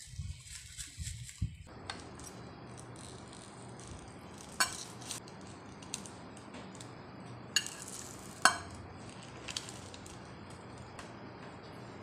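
A metal spoon and dishes clinking: a handful of sharp clinks against the glass baking dish and ceramic plate as a portion is served, the loudest a little past the middle, over a steady background hiss.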